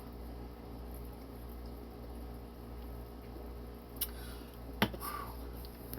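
Steady low room hum, broken by two sharp clicks about four and five seconds in, the second the louder.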